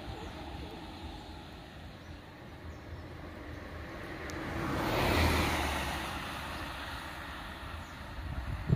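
A motor vehicle passes close by: its engine and tyre noise swells to a peak about five seconds in, then fades away, over a steady low rumble. A short sharp thump comes right at the end.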